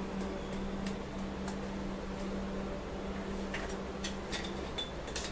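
A steady low hum and room noise, with a few faint, light clicks scattered through it.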